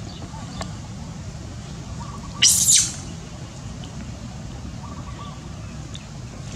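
A single loud, shrill animal call lasting about half a second, roughly two and a half seconds in, over a steady low background rumble, with faint short chirps around it.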